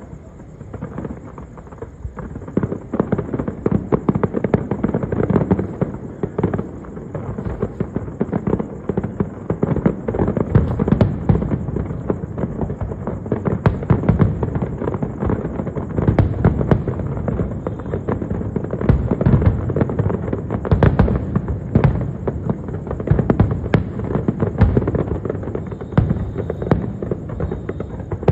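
Fireworks going off in a dense, continuous barrage of bangs and crackles, with many sharp louder reports scattered through it.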